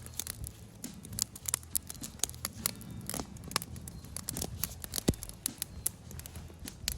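Irregular small clicks, taps and wet handling noises as raw beef liver slices are laid on bacon and rolled up by hand.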